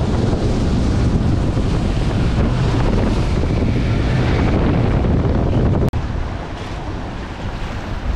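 Heavy wind buffeting the microphone over the rush of water from a center-console boat running fast across choppy water. About six seconds in the sound cuts off suddenly and goes on quieter: wind and waves with the boat moving slower.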